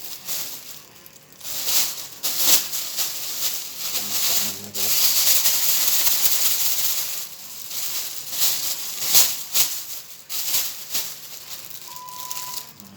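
Plastic carrier bag rustling and crinkling as it is handled, in uneven crackly bursts. A short steady beep sounds near the end.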